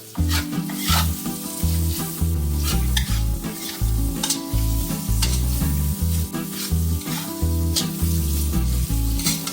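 Shredded carrot sizzling as it is stir-fried in a pan, a spatula scraping and tossing it every half second or so, over a low pulsing beat.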